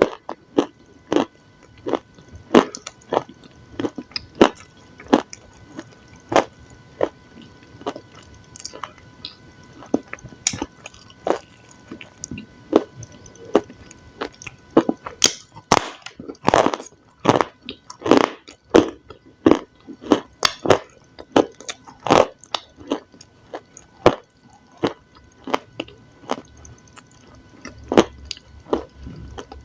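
Close-miked eating: a person biting into and chewing crunchy food, with sharp crisp crunches in an irregular run of about one to two a second.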